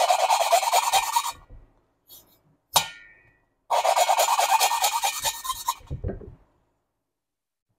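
A valve being hand-lapped into its seat in an aluminium VW Type 4 cylinder head: the lapping stick is spun rapidly back and forth between the palms, and the valve face grinds against the seat through gritty lapping compound in two bursts of fast rasping. Between the bursts comes a single short metallic click with a brief ring, as the valve is lifted and set back down on the seat.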